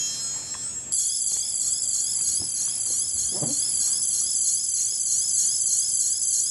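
Ben 10 Omnitrix toy watch playing an electronic sound effect from its small speaker. After a short run of falling high tones, a high-pitched warbling tone starts about a second in, wavering up and down quickly and steadily. It is the sound the toy makes when its face is worked quickly.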